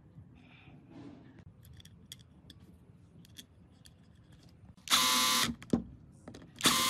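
Cordless screwdriver motor running in two short bursts, about five seconds in and again near the end, driving Phillips screws into a circular saw's blade-guard housing. Before that, faint clicks of small metal parts being fitted by hand.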